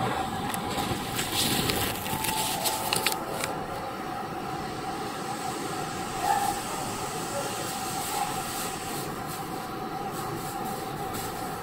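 A Chiba New Town Railway 9100 series WN-drive motor car running between stations: a steady whine at constant speed under the noise of the wheels on the rails, with a series of sharp clicks from the track in the first few seconds.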